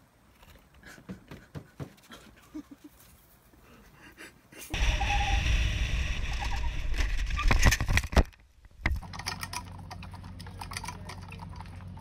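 Motorcycle running with wind noise on the microphone for about three and a half seconds, starting about five seconds in and cutting off abruptly. Quieter stretches come before and after: faint scattered clicks before, and a steady low hum with light rattling after.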